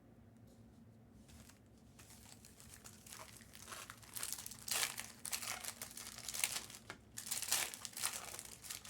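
Crinkling and rustling of the foil trading-card packs and their plastic wrapping being handled, starting faintly about two seconds in and coming in louder, irregular bursts from about four seconds on.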